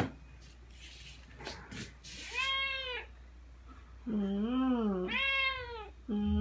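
Ragdoll cat meowing at its owner who is getting ready to go out: about two seconds in it begins a run of four drawn-out meows, each rising and then falling in pitch. A sharp click and some brief rustling come before the first meow.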